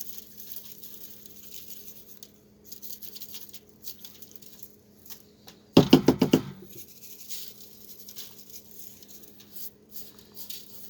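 Montreal steak seasoning being shaken from its shaker onto a raw brisket: a faint patter and rustle of granules. About six seconds in there is a brief loud burst of rapid rattling shakes.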